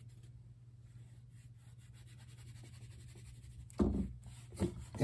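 A wad of tissue wiping dry-erase marker off a whiteboard: a faint, steady rubbing over a low hum, with a short, louder sound about four seconds in.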